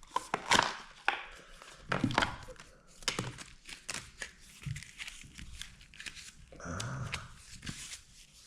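Plastic and paper packaging crinkling and tearing in a run of irregular short crackles and clicks as a package is opened by hand.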